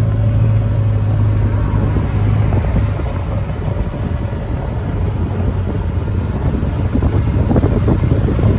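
Engine of a small open farm vehicle running steadily while driving, with a constant low hum and wind rumbling on the microphone.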